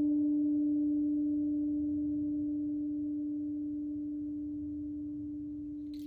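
A single low ringing tone from a struck sound-healing instrument, slowly fading, with fainter overtones above it. Right at the end a high rustling noise begins.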